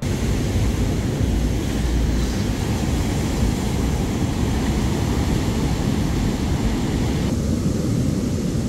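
Ocean surf breaking on a sandy beach: a steady, rumbling wash of waves. About seven seconds in the sound turns slightly duller.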